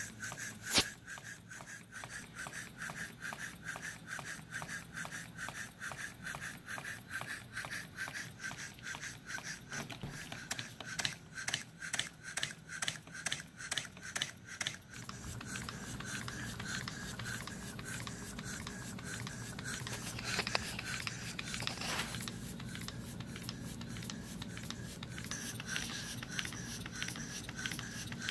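Small four-column reversing steam engine running on low-pressure compressed air, its exhaust puffing in a fast, even rhythm with each stroke. A single sharp click comes about a second in, and the puffs grow less distinct in the second half.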